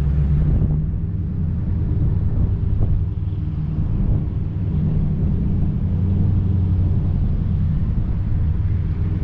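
Car engine and exhaust running with a steady low rumble while the car drives slowly.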